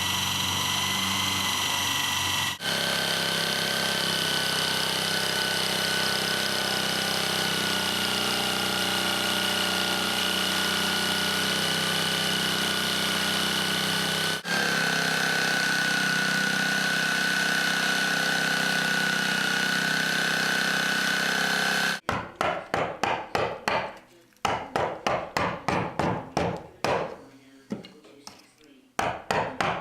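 Electric drill running steadily under load, boring into chipboard flooring, with a high whine that breaks off briefly twice. After about twenty seconds it gives way to quick back-and-forth strokes of a hand tool on wood, about four a second.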